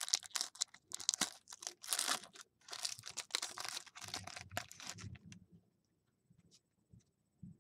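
Plastic wrapper of a trading-card pack crinkling and tearing as it is pulled open, stopping about five seconds in.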